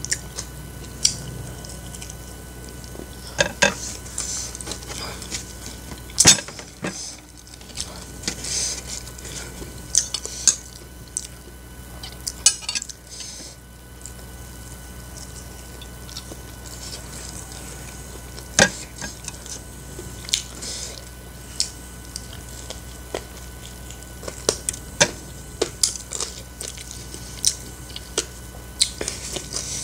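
Close-miked eating: crispy fried chicken bitten and chewed, with sharp clicks and clinks of a fork and ceramic plates every few seconds.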